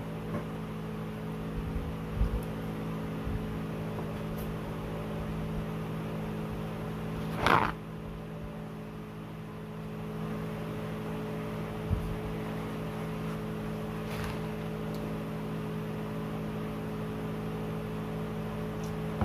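Steady mechanical appliance hum made of several held tones, with soft chewing and eating noises over it. One short, louder mouth or handling noise comes about seven and a half seconds in.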